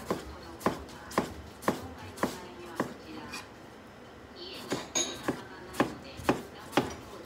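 Kitchen knife slicing tomatoes on a cutting board, the blade knocking against the board about twice a second, with a pause of about a second and a half midway.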